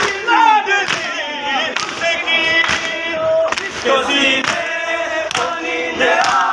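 A crowd of men chanting a Muharram mourning chant together. Sharp slaps come about once a second, in time with the chant: mourners beating their chests (matam).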